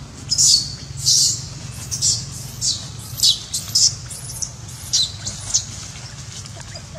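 A young macaque squealing: a run of short, high-pitched cries, about two a second, each dropping a little in pitch, thinning out and stopping about five and a half seconds in.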